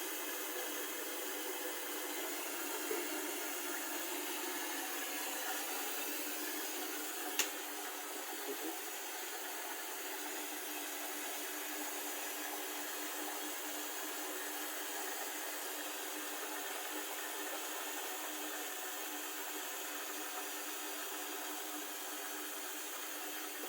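Hotpoint Ariston VMUF 501 B narrow front-loading washing machine running at the start of a rinse cycle: a steady, even hiss. There is a single sharp click about seven seconds in.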